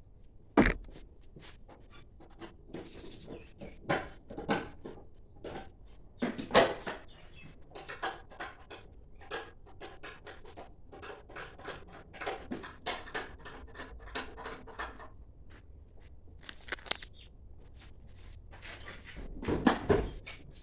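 Irregular clinks, knocks and scrapes of tools and metal parts being handled, with sharper knocks about half a second in, around six seconds in, and a cluster near the end.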